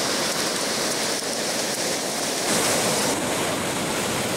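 Ocean surf breaking and washing up a sandy beach: a steady rush of waves and foam that swells a little past halfway.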